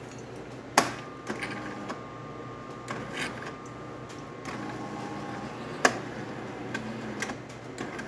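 Jura Impressa F9 super-automatic espresso machine running its rinse cycle: a steady low hum with a faint thin whine, broken by a few sharp clicks and knocks, the loudest about a second in and near six seconds.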